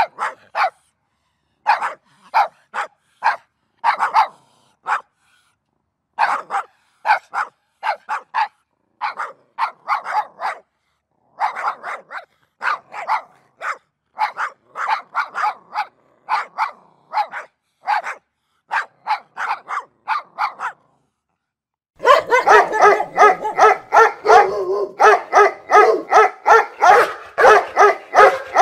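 Dog barking in quick runs of short barks, with brief pauses between the runs. About 22 seconds in, a different recording cuts in abruptly with denser, nearly continuous barking over a steady background.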